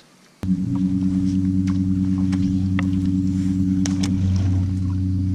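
A boat motor starts up suddenly about half a second in and runs steadily as a low, even hum, with a few faint clicks over it.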